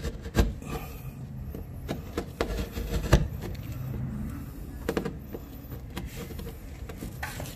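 Utility knife blade scoring and scraping into a painted plasterboard wall to cut out a small square. It comes with scratchy rubbing and a few sharp knocks, the loudest about three seconds in.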